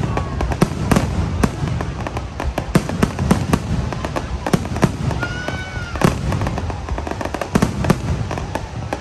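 Fireworks going off in a dense, irregular barrage of bangs and crackling pops over a continuous low rumble. A short whistling tone, dipping slightly in pitch, sounds about five seconds in.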